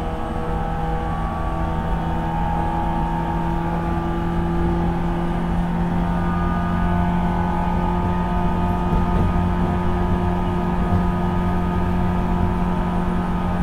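JR 475-series express-type EMU (motor car KuMoHa 475-42) running, heard from inside the car's vestibule: MT54 DC traction motors and 19:80 gearing whining over steady rail rumble. The whine holds several steady tones, some of them drifting slowly higher as the level rises slightly.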